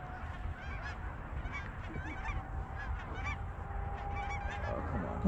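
A flock of geese honking faintly overhead, many short calls overlapping.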